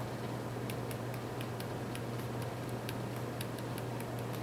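Faint, light clicks coming irregularly a few times a second, over a steady low electrical hum.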